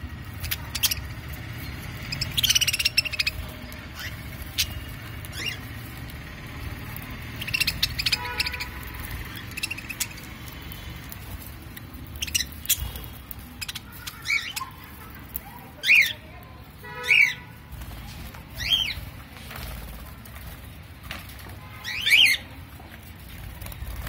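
Budgerigars chirping and squawking: a dozen or so short, sharp calls scattered through, louder and closer together in the second half, over a low rumble.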